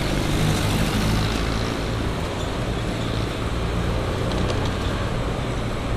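Motorcycle engine running steadily at cruising speed, with wind and road noise rushing over the microphone as the bike rides along.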